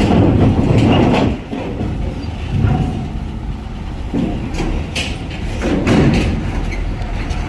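Heavy Hino diesel truck engine running as the truck creeps forward at close range, a steady low rumble that is loudest in the first second or so.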